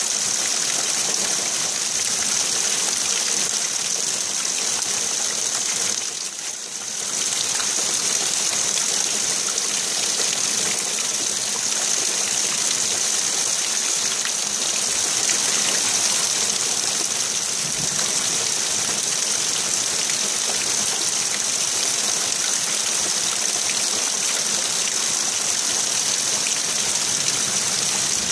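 Steady heavy rain, an even hiss with no thunder heard, briefly quieter for about a second some six seconds in.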